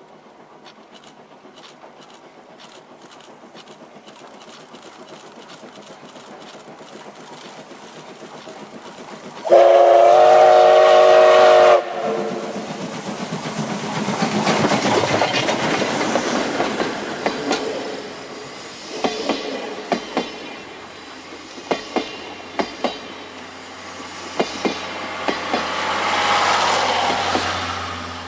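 D51 2-8-2 steam locomotive (D51 498) approaching at speed, its exhaust beats fast and regular and growing louder, then sounding its steam whistle for about two seconds, the loudest moment. It then passes with heavy exhaust and rail noise, the wheels clicking over rail joints in regular pairs as the carriages run by.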